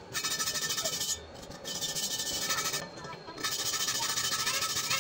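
Stick-welding arc crackling and sizzling as an electrode is run along a square steel tube joint, in three runs of about a second each with short breaks between.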